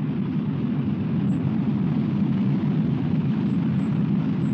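Steady low rumble of a rocket explosion and its burning fireball, with no sharp blast.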